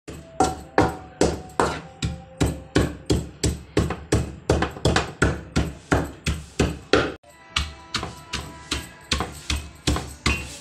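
A wooden pestle pounding in an aluminium cooking pot: steady knocks, about two and a half a second, each with a short metallic ring. The pounding breaks off for a moment about seven seconds in, then resumes.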